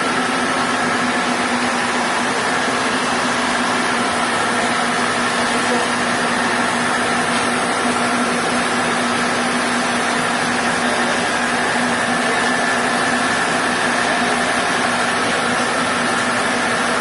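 An engine running steadily at a constant speed, a continuous hum that does not change.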